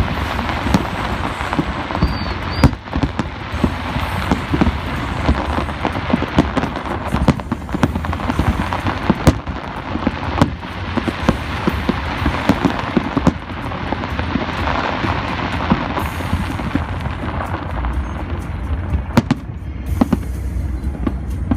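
Aerial fireworks display: a continuous run of booming shell bursts and crackling, with sharp bangs coming every second or so over a steady rumble.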